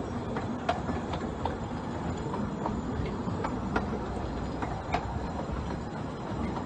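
Miniature-railway coaches rolling slowly past, a steady low rumble with the wheels clicking over rail joints and points every half second or so.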